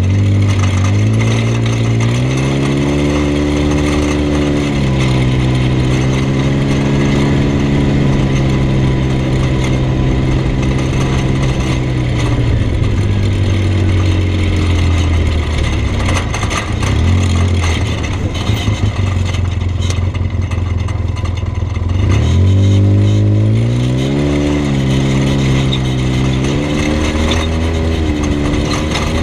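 Vehicle engine running while driving, heard from a body-mounted camera. Its pitch climbs in the first couple of seconds and holds, sags about halfway through, then climbs again a little past two-thirds of the way in, over a steady rush of wind and road noise.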